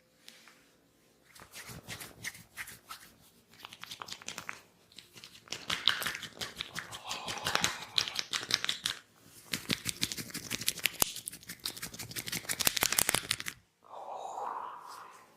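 Head massage on oiled hair: rapid, dense crackling as the barber's hands rub and pull through the hair (hair cracking). It comes in several runs of a few seconds each and breaks off shortly before the end.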